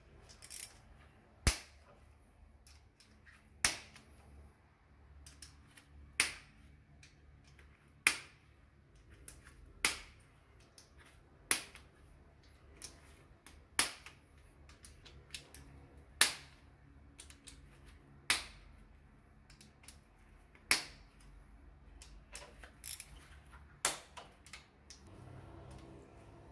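Sharp metallic cracks, about a dozen spaced roughly two seconds apart, as a hex key breaks the clutch-cover screws of a 2007 Triumph Bonneville loose one after another.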